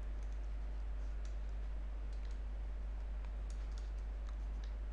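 Faint, scattered light clicks, about a dozen at uneven intervals, from a computer input device worked while handwriting on screen, over a steady low electrical hum.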